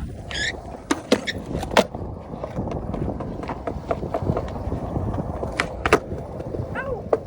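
Skateboard wheels rolling on concrete with a steady rumble, broken by several sharp clacks of the board and trucks hitting the ground, the loudest about six seconds in. A couple of brief high squeaks come near the start and the end.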